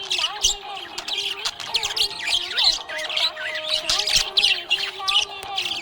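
Budgerigars chirping and warbling, a dense, continuous chatter of quick high chirps and squawks.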